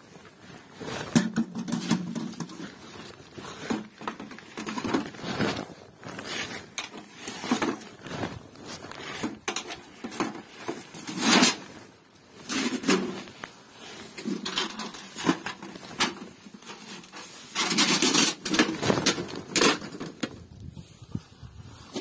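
A small sheet-metal camping stove and its metal chimney pipe being handled: irregular clanks, knocks and scrapes of thin metal, with a longer, louder scraping stretch about three quarters of the way through.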